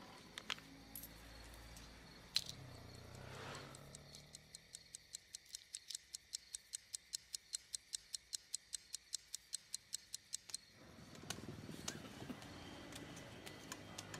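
A single sharp click, then a pocket watch ticking fast and evenly at about five ticks a second. The ticking stops suddenly a little past the two-thirds mark.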